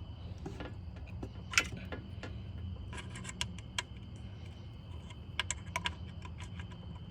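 Allen wrench clicking and ticking against an ignition-coil hold-down bolt as it is turned tight by hand, in scattered light taps over a steady low hum.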